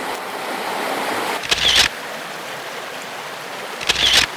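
Steady rush of creek water, with two short bursts of camera handling noise, about a second and a half in and near the end.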